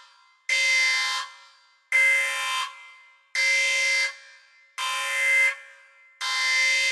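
A horn-like electronic tone repeating at an even pace, one blast about every second and a half, each lasting under a second with a sharp start and a fading tail, always on the same pitch.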